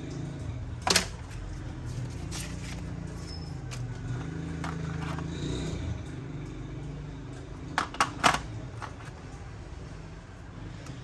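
Sharp clicks and taps from handling a smartphone and its packaging during unboxing: one loud click about a second in and a quick run of three near the end, over a steady low hum.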